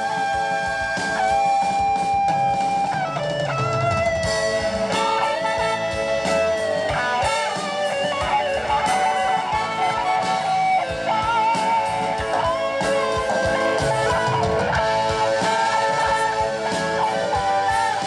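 Live band playing an instrumental passage with electric guitar, in a blues style.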